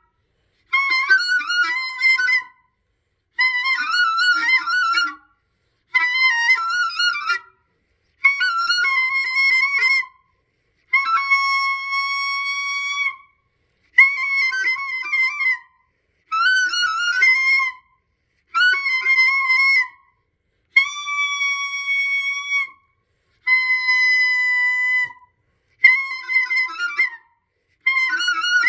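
Clarinet music in short phrases of about two seconds, each cut off by about half a second of silence; most phrases warble quickly between notes, while a few hold one steady note.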